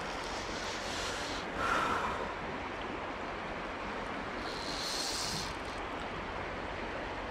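Steady rush of flowing river water, with a short louder burst about one and a half seconds in and a brief higher hiss about four and a half seconds in.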